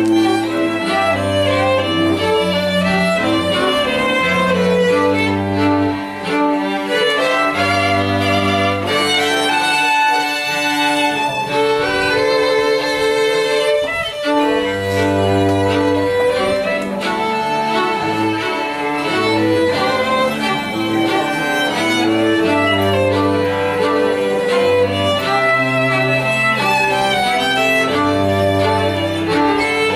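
Live string ensemble of two violins, viola and cello with a concert harp playing a slow piece of sustained bowed notes, the cello holding low notes under the melody.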